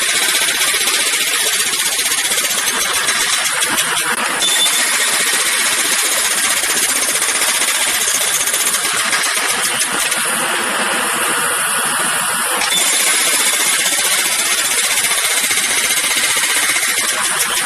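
Jackhammer hammering continuously, a loud, dense, rapid rattle. Its tone shifts slightly about four and a half seconds in and again about two-thirds of the way through.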